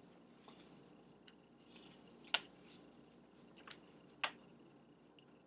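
Quiet room tone with a few faint, sharp clicks and ticks, the clearest about two seconds in and near four seconds in.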